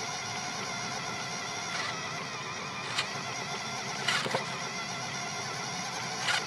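Small electric motor and gearbox of a remote control car running steadily with a high, even whine, picked up by a phone mounted on the car. A few sharp clicks or knocks break in, the loudest pair about four seconds in.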